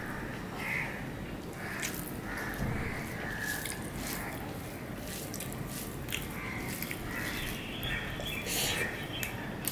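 Close-up eating sounds of mutton kacchi biryani being eaten by hand: chewing and lip smacks, with fingers squishing and mixing the rice on the plate. Small clicks and smacks keep coming, busier in the second half.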